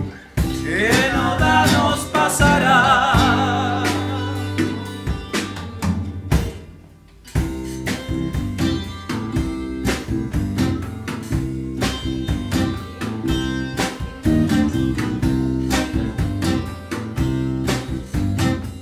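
A folk band playing: a sung note that slides up and is held with a wavering vibrato over acoustic guitar, bass and drums, then a brief near-stop about a third of the way through, after which guitar and tiple strumming resumes with the drums.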